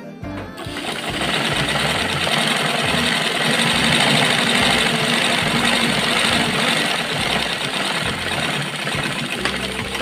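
Old black domestic sewing machine stitching a strip of cloth at speed: a steady, dense mechanical rattle that starts about half a second in and slows near the end, with background music underneath.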